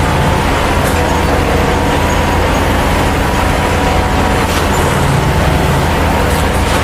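A large engine running steadily, with a constant low drone.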